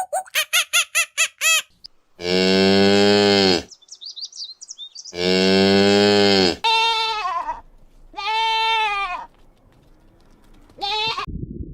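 Cow mooing: two long, loud moos, then three shorter calls, with faint chirping between the first two moos. Before the moos, a fast run of croaks stops about a second and a half in.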